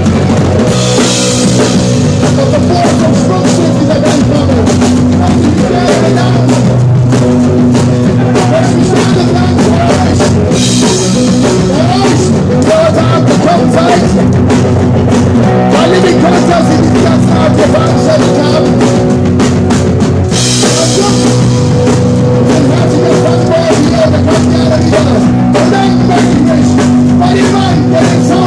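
Live punk rock band playing loud: drum kit, electric guitar and bass with a sung vocal, heard from within the audience. Crash cymbal washes stand out about a second in, about ten seconds in and about twenty seconds in.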